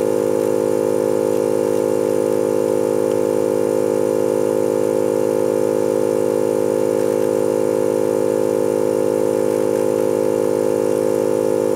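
Hot air reflow gun's blower running at a steady pitch, a constant hum with air rush, while blowing hot air onto a surface-mount transistor to melt its solder for removal.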